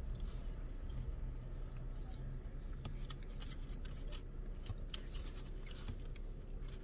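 Paper takeout food wrapper crinkling and rustling in short crackly bursts as it is handled, busiest in the middle of the stretch, over a low steady rumble.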